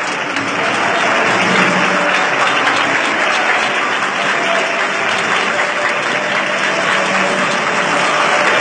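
A congregation applauding: dense, steady clapping that carries on without a break.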